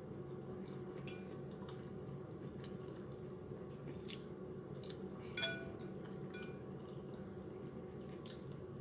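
Quiet eating: a few light clicks of a utensil against a dish, the loudest with a short ring about five and a half seconds in, over a steady low background hum.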